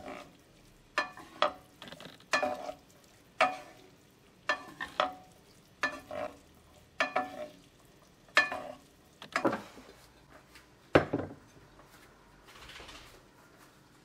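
Two wooden spoons tossing spaghetti in a pan, knocking against the pan about once a second, often twice in quick succession, each knock ringing briefly. A heavier, deeper thump comes about eleven seconds in.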